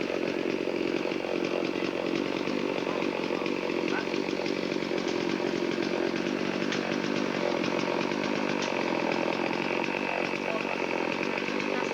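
Chainsaw engine running steadily at an even pitch, typical of cutting up a storm-felled tree.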